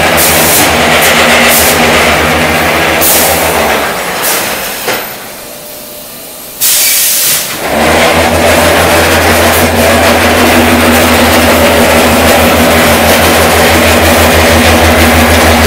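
Concrete block-making machine and its feed conveyors running with a loud, steady mechanical hum. About four seconds in the hum dies away for a couple of seconds. A short loud hiss follows, then the hum starts up again, stronger and steady.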